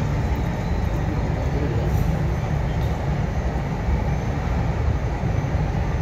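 Steady, loud rushing rumble of an indoor waterfall, with no breaks and the deep end strongest.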